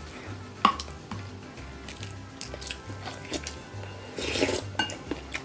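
Eating sounds: spoons clicking against bowls and chewing, with a short noisy rush of eating about four seconds in, over light background music with a steady beat.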